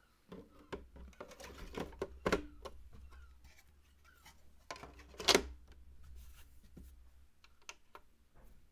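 Plastic drive tray holding a 2.5-inch SSD sliding into a bay of a QNAP TS-464 NAS, then the front cover fitted back on: a string of scrapes, clicks and knocks, the loudest a little past halfway.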